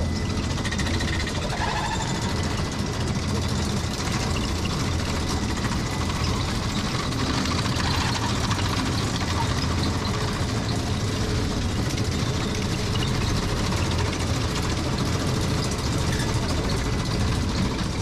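Steep-grade monorail car's drive running steadily as the car travels along its rail, a constant low rumble with no change in pace.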